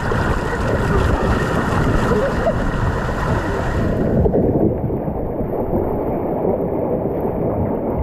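Water rushing and splashing around an inflatable raft as it slides down a rafting water slide, picked up close by a chest-mounted camera. About halfway through, the sound abruptly turns duller and more muffled.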